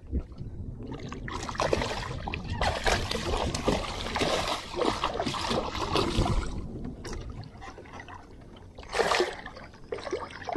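Water splashing and sloshing at the side of a small skiff as a hooked redfish is brought in, irregular and choppy for several seconds, with one louder splash near the end.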